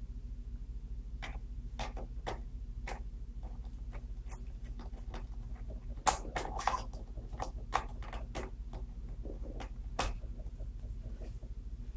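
Irregular small clicks and ticks of a screwdriver and screws against a Sony Vaio laptop's plastic-and-metal underside as it is put back together, with a few sharper clicks about six and ten seconds in, over a steady low hum.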